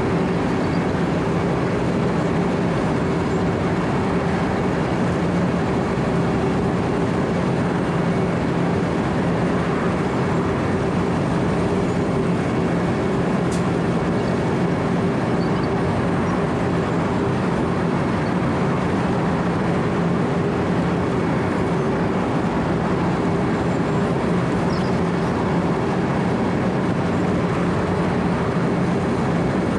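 Wirtgen W 120 CFi 4-foot cold milling machine running steadily while milling asphalt: a constant diesel drone with a low hum over the grinding noise of the cutting drum.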